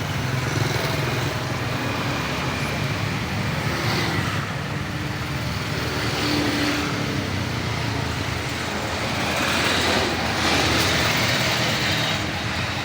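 Steady street noise with road traffic running through it.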